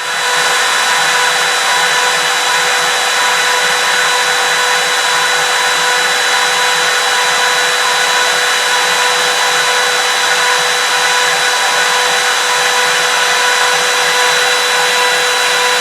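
CNC router spindle running at a steady speed with a high whine over a hiss, cutting a test piece in wood.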